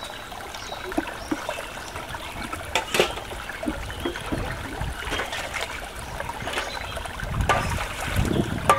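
Shallow stream trickling over stones while metal bowls are rinsed by hand in the water, with splashing and a few sharp knocks of metal dishes, the loudest about three seconds in. The splashing grows louder near the end.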